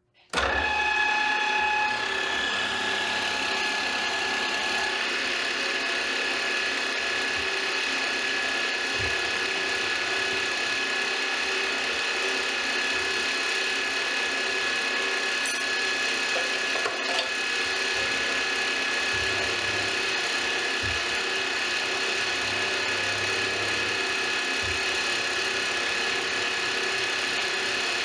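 Milling machine running with a steady whine made of several fixed high tones, as an end mill cuts the end of an aluminium extrusion held in a vise. The sound starts abruptly, and a couple of the tones drop away in the first few seconds.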